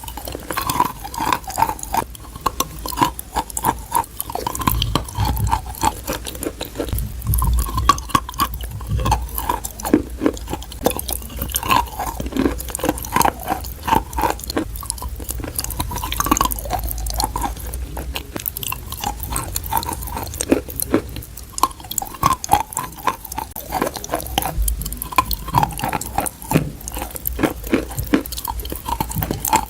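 Close-miked biting and chewing of crunchy edible clay chalk: a dense, irregular run of crisp crunches and crackles with mouth sounds.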